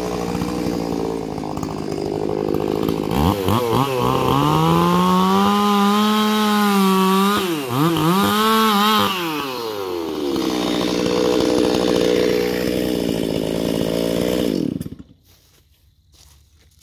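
Stihl MS361 two-stroke chainsaw running, revved to full throttle about three seconds in and cutting into the trunk of a red maple, its pitch dipping under load and recovering. It drops back to lower revs and then shuts off abruptly near the end.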